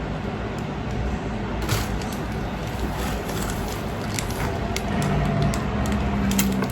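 Gift wrapping being torn and pulled off a box, with short crackles and rustles over a steady low rumble.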